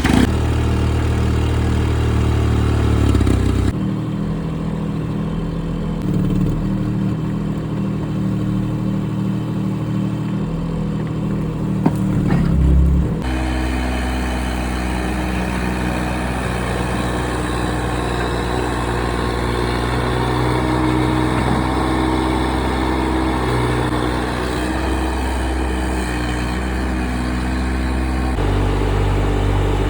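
Excavator's diesel engine running steadily. Its pitch and pattern change abruptly a few times, about 4, 13 and 28 seconds in.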